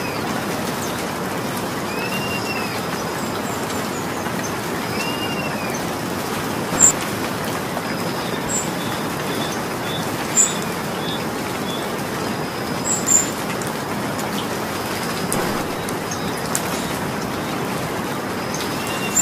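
Steady rain falling. A bird gives a short arched chirp three times in the first six seconds, and a few sharp drips or ticks stand out above the rain.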